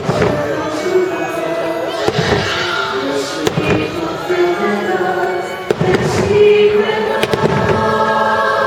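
Fireworks bursting, several sharp bangs about a second or two apart, over the fireworks show's music soundtrack playing from loudspeakers.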